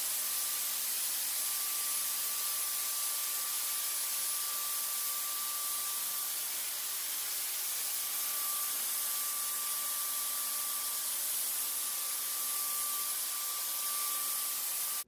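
Handheld electrostatic sprayer running steadily, its nozzle giving a constant hiss of disinfectant mist over a thin, high motor whine; it cuts off suddenly at the end.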